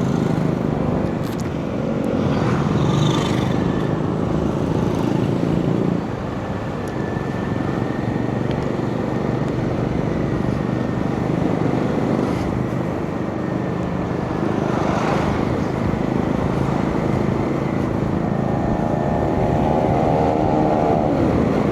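Steady engine and road noise of a vehicle travelling along a road. Brief swells come about 3 s and 15 s in, and a pitched hum shows near the end.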